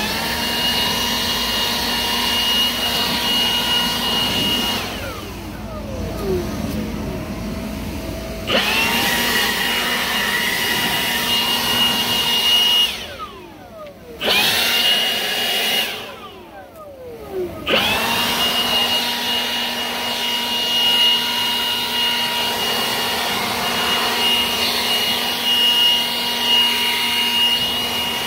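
Milwaukee battery-powered leaf blower running flat out with a steady high fan whine. The trigger is let off and squeezed again three times, so the fan spins down and then winds back up to full speed.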